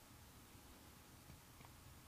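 Near silence: faint steady room hiss, with a couple of faint light ticks about a second and a half in.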